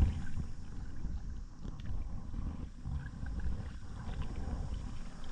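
Wind buffeting the microphone: an uneven low rumble that rises and falls, with a few faint ticks over it and a brief knock at the start.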